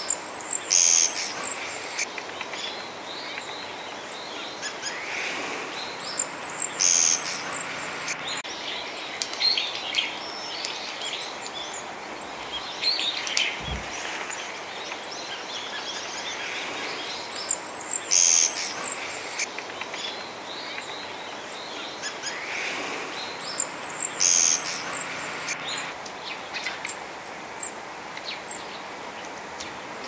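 Wild bird singing a short phrase of very high, thin trilling notes with lower chirps under them, four times about six seconds apart. Fainter calls come in between, over a steady outdoor hiss.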